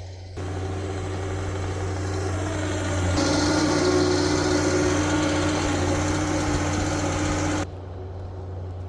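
Heavy diesel machinery engine running steadily with a low drone. It gets louder about three seconds in and drops off abruptly near the end.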